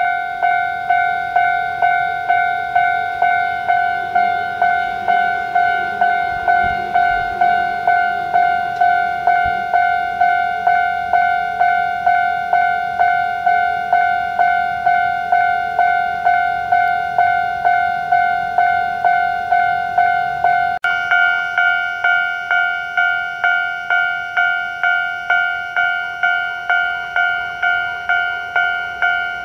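Japanese electronic railway level-crossing warning bell ringing, an even repeating two-tone ding at about three strikes every two seconds. About two-thirds of the way through its tone changes abruptly, with brighter overtones added.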